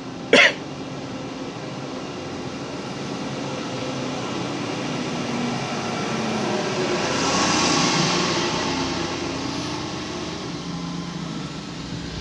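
Traffic noise heard from inside a waiting car as a truck passes close by, swelling to a peak about eight seconds in and then fading. A single sharp click sounds just after the start.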